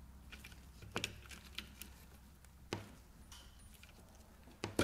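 Faint metallic clicks and clinks of a roller chain and the small steel pedal-drive sprockets of a moped engine being slid off their shafts by hand, with three sharper clicks: about a second in, just before three seconds and near the end.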